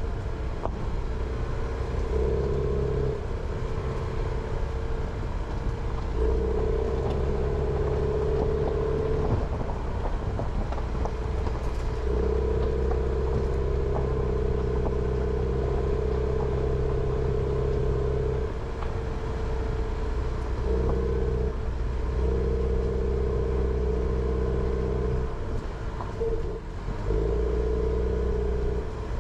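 Jeep Renegade driving, engine running at a steady pitch with tyre and road noise. The engine note fades and comes back every few seconds as the throttle is eased off and reapplied, with a few light knocks from the road surface.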